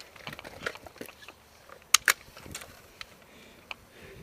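Scattered light clicks, ticks and rustles of a player moving over gravel with kit on, with two sharp clicks close together about two seconds in, louder than the rest.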